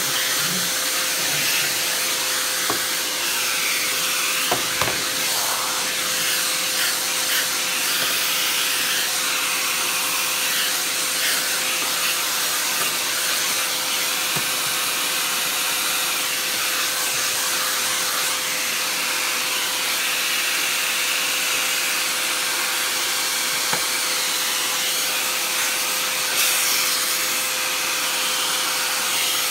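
A vacuum cleaner running steadily with a constant hum, being used to suck dust off another machine, with a few light knocks.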